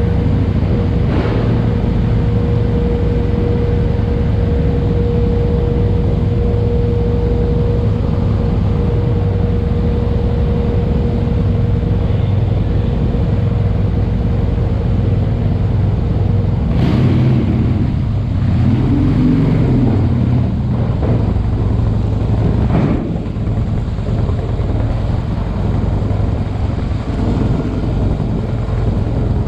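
Vehicle engines running with a steady low rumble as vehicles leave a ferry's car deck. A steady tone sounds through the first half, and a few sharp knocks come later.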